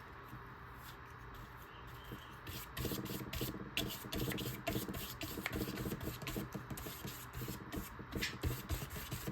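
Paintbrush brushing paint onto paper in short, repeated scratchy strokes, which get busier about three seconds in.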